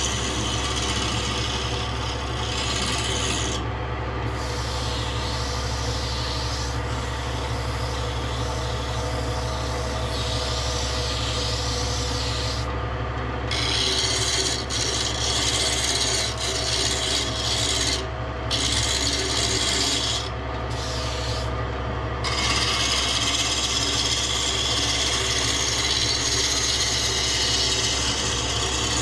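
Wood being worked with an abrasive tool, a continuous rubbing rasp that breaks off briefly a few times, over a steady low machine hum.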